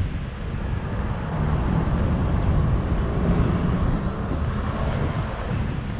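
Steady noise of traffic on a busy city road, with wind buffeting the microphone in a low, uneven rumble.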